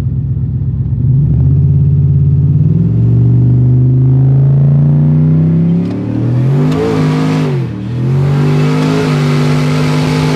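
Turbocharged 427 cubic-inch V8 in a 4WD Chevy Silverado accelerating hard at full throttle. Its pitch climbs steadily for about five seconds, drops suddenly around six seconds in as it changes gear, wavers briefly, then holds steady under power with a rushing hiss on top.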